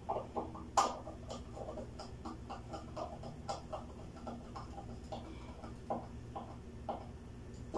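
Small irregular clicks and taps of fingers working a wire into the terminal of a small circuit breaker, with one sharper click about a second in. A faint low hum runs underneath.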